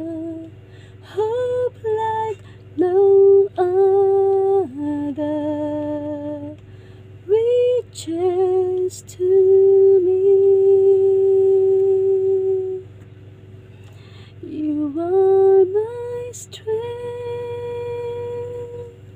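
A woman's voice singing a slow worship-song melody without words, held notes in short phrases with pauses between, unaccompanied.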